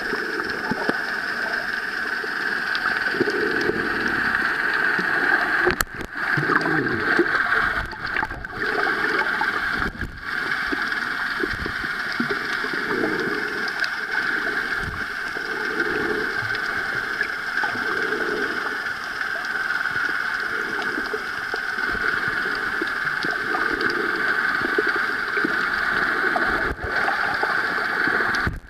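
Water gurgling and sloshing under a steady hiss, with soft surges every second or two; the sound dips out briefly a few times.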